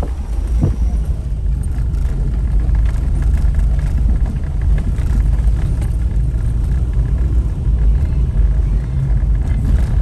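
Steady low rumble of a car on the move, heard from inside: road and engine noise while driving.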